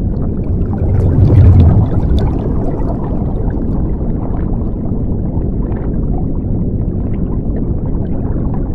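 Underwater bubbling sound effect: a muffled, low rumble of churning water with small scattered crackles and pops, swelling loudest about a second in and then holding steady.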